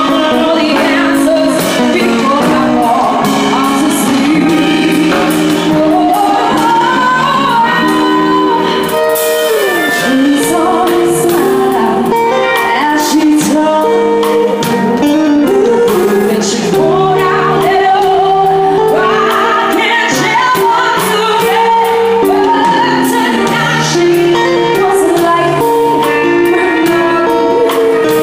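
A woman singing a song through a handheld microphone over amplified band accompaniment with regular percussion hits.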